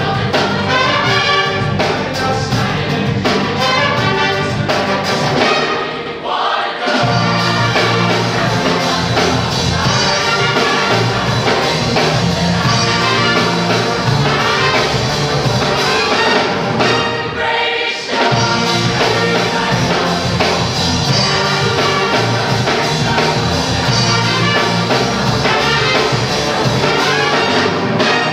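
Jazz big band playing, with brass and saxophones and a rhythm section, behind a group of singers singing together. The band drops out briefly twice, about six and eighteen seconds in.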